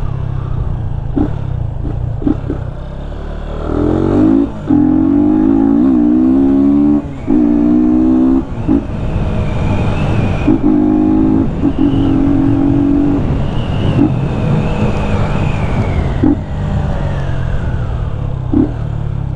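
Yamaha Fazer 250's single-cylinder engine running with its air filter removed, accelerating through the gears. The pitch climbs, drops briefly at each shift about four and a half, seven and eight and a half seconds in, holds steady for a couple of seconds, then eases off.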